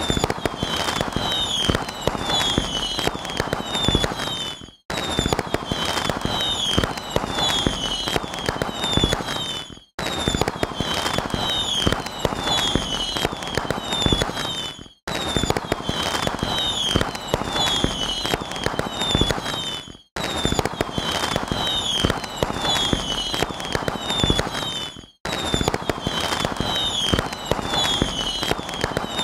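Fireworks display: dense crackling and popping with short falling whistles. The same few seconds of sound repeat about every five seconds, cutting out briefly between repeats.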